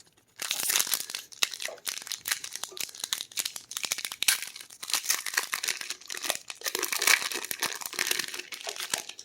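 Foil Magic: The Gathering booster pack wrapper crinkling and being torn open, a dense run of crackles that stops just before the end.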